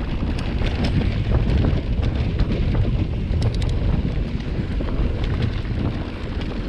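Wind buffeting the microphone while riding an electric mountain bike along a dirt trail, a steady low rumble with scattered small clicks and rattles.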